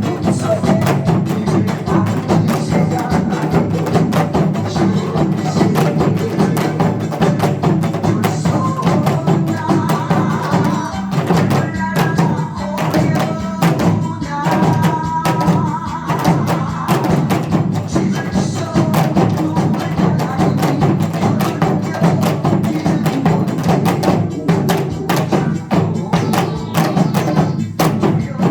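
Live music played with many sharp, rapid percussion hits over a steady low backing. A melodic line comes in around the middle.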